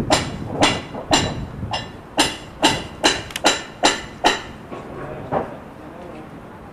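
Hammer striking metal: about ten sharp, ringing blows at roughly two a second, stopping about four seconds in, then one fainter blow.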